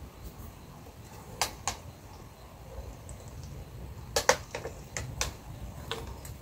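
Thin plastic water bottle crackling in a series of short, sharp clicks while someone drinks from it, the loudest a close pair about four seconds in.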